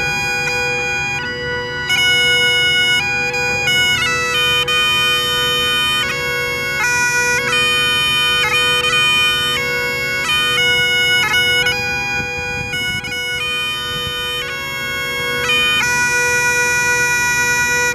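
Bagpipes playing a tune: the chanter melody moves through quick note changes over the steady drone.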